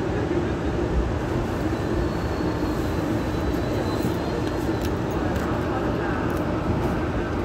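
Hong Kong Light Rail Phase I car running between stops, heard from on board: a steady rumble of wheels and running gear. A faint high whine comes in about two seconds in and fades a couple of seconds later, with a few light clicks after it.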